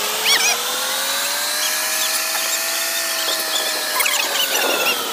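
Heavy diesel engine straining at high revs as a wheel loader pushes a stone-laden truck: its whine climbs over about three seconds, then slowly sags. Short shrill warbling sounds cut in about half a second in and again near four seconds.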